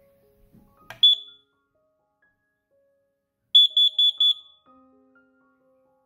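Kidde 5DCO carbon monoxide alarm's sounder beeping as its test/reset button is pressed: a click and one short high beep about a second in, then four rapid high-pitched pulses, the first group of the alarm's test pattern.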